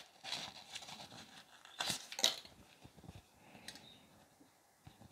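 A cleaning prep-pad sachet being torn open and the wipe pulled out and unfolded: faint crinkling of the wrapper and wipe, with two louder rustles about two seconds in.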